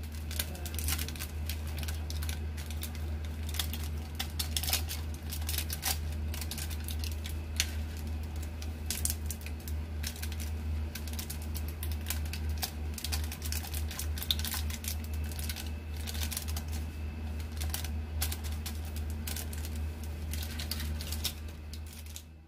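Light, irregular clicks and taps over a steady low hum, as Maggi masala is sprinkled onto instant noodles in water in an aluminium kadhai and stirred in.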